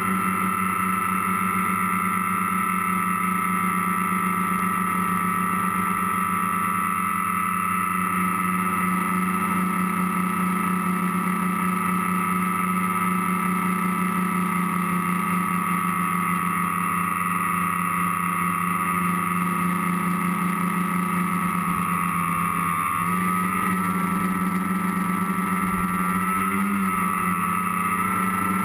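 Tricopter's electric motors and propellers whining steadily, heard from the onboard camera, with the pitch wavering slightly near the end as the throttle changes.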